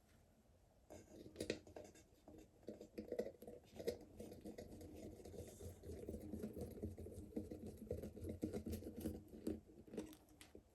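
Faint handling noise from small parts being worked by hand: scattered light clicks, taps and scraping.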